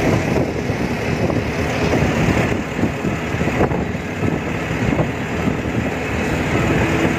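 Light goods truck driving along the highway: steady engine and road rumble.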